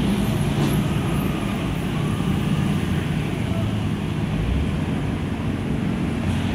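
Steady road traffic: vehicle engines running with a continuous low rumble.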